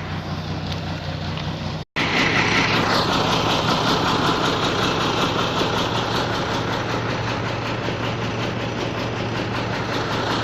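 Iveco Eurotech truck's diesel engine idling steadily. A brief break about two seconds in, after which it sounds louder.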